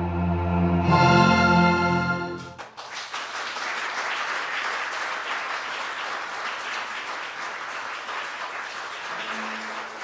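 Closing music of a stage musical holds a sustained chord that swells about a second in and cuts off after about two and a half seconds. An audience then breaks into steady applause.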